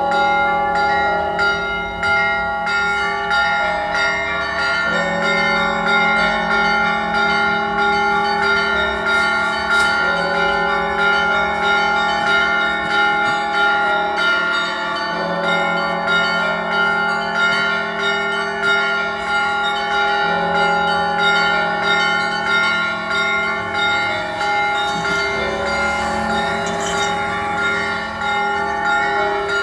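Cathedral bells ringing together in the Orthodox style. Many bells sound at once in a dense, continuous peal of rapid strikes over long-ringing tones, with a heavier shift in the low bells about every five seconds.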